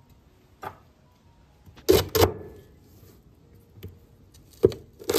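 Kitchen cleaver chopping through corn cobs on a chopping board: about six heavy, irregularly spaced blows, the loudest a quick pair about two seconds in.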